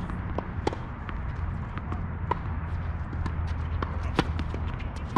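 Tennis play on a court: scattered sharp pops of a tennis ball being struck and bouncing, mixed with players' running footsteps, over a steady low hum.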